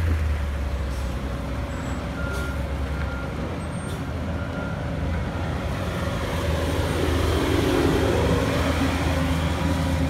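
Bobcat skid-steer loader with a milling attachment running and driving past close by, its engine noise swelling about two-thirds of the way through, over the steady low hum of other idling construction machinery. A faint backup alarm beeps regularly in the first half.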